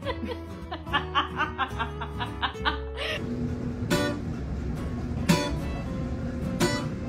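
Music for about three seconds, then a guitar struck in single chords a little over a second apart, each left to ring.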